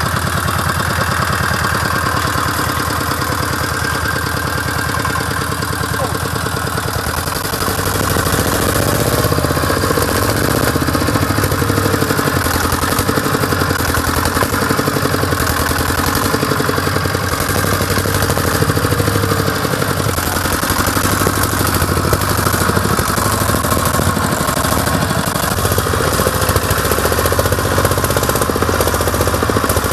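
Off-road vehicle's engine running steadily near idle, then working harder and a little louder from about seven seconds in, its pitch rising and falling as it goes.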